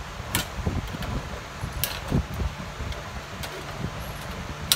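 Aviation tin snips cutting short relief slots into the thin sheet-metal collar of a dryer vent, so that it can flare out over the existing sleeve: a few sharp snips, the loudest near the end, over a steady low hum.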